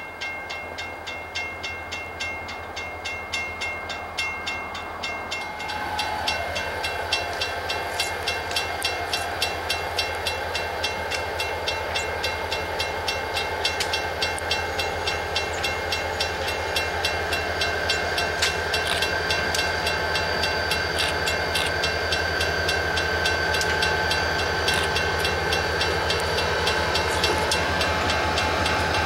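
Grade-crossing warning bell starting to ring as the signals activate, striking steadily about twice a second. From about five seconds in, an approaching diesel locomotive joins it and grows steadily louder until it reaches the crossing near the end.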